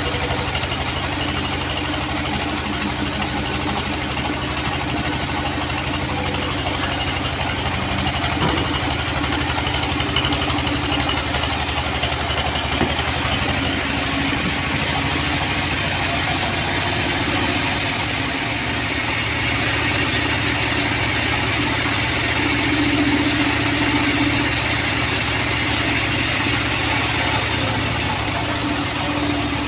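Homemade band sawmill running steadily, its drive engine and blade making a continuous machine drone, with a change in tone about halfway through.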